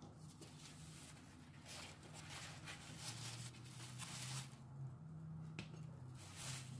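Paper towel rustling and crinkling in bursts as hands fold it around chopped pickled radish and squeeze the water out of it.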